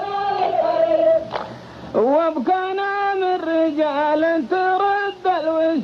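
Unaccompanied men's voices chanting a qalta poetry verse in long held notes, the melody stepping between pitches with short breaks between phrases.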